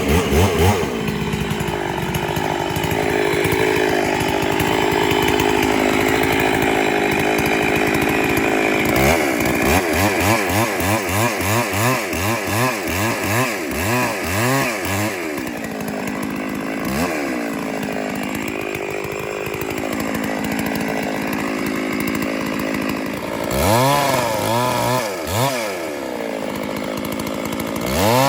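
Two-stroke chainsaw held at high speed for about nine seconds, then revved up and down in quick repeated blips, settling lower before two more revs near the end.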